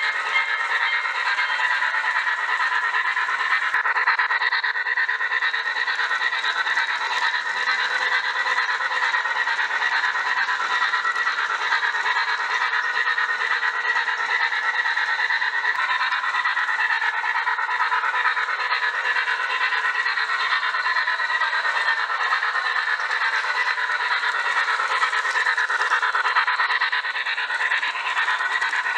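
HO-scale model freight train running steadily on its track, with wheels rolling and the locomotive motor running, giving an even, unbroken noise.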